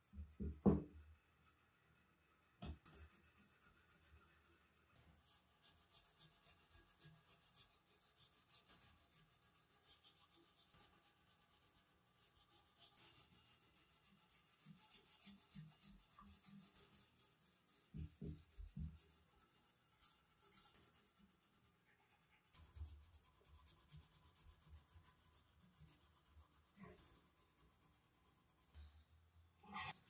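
Hand tool scraping rusty metal parts of an old coffee grinder in repeated scratchy strokes, with a knock about a second in and a few softer knocks later.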